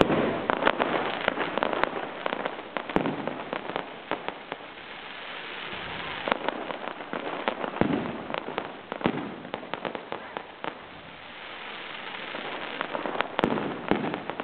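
Fireworks display: a steady run of bangs and crackling pops. The heaviest bursts come near the start and again about six, eight and thirteen seconds in.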